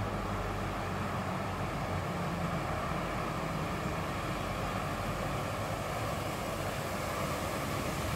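Steady low mechanical drone in the background, even in level throughout, with no clicks or breaks.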